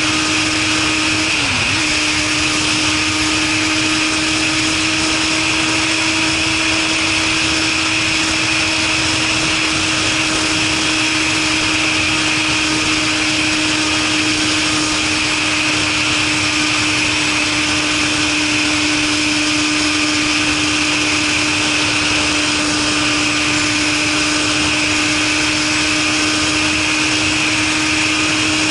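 Suzuki Katana motorcycle engine with a Super Combat aftermarket muffler running at a steady cruise under constant wind rush. Its pitch holds level except for a brief dip and recovery about a second and a half in.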